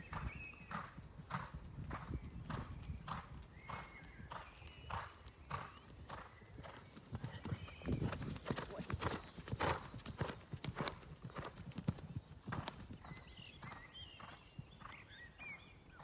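A ridden horse's hooves beating on an arena's sand surface in a steady canter rhythm, about two strides a second. The hoof thuds are heavier around the middle, where the horse is landing over jumps.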